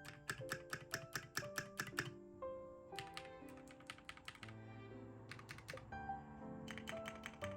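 Keystrokes on a Kiiboom crystal-clear mechanical keyboard, tapped in several quick bursts of clicks, over soft background music.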